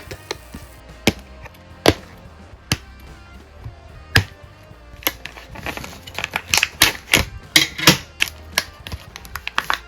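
Scissors snipping through plastic packaging ties, sharp single snips about a second apart, then a quicker run of snips in the second half.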